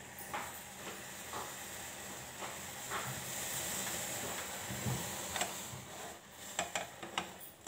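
Chai (tea with milk) coming to the boil in a stainless steel pan over a gas burner: a steady hiss with a few faint ticks and pops as the froth rises.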